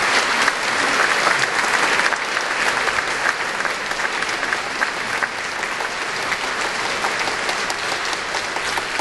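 Large audience applauding, loudest over the first couple of seconds and then steady.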